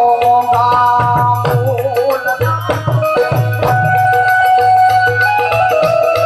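Gujarati santvani devotional folk music: steady held melodic notes over a regular hand-drum beat, with sharp percussion strikes.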